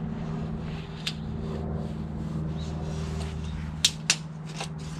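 A steady low mechanical hum runs in the background while a steel tape measure and rubber drive belt are handled, giving a sharp click about a second in and two quick clicks close together near the end.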